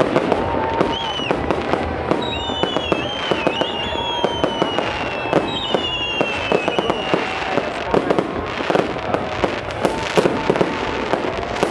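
Fireworks display: many sharp bangs and crackles of bursting shells in quick succession, with several long whistles falling slowly in pitch through the middle.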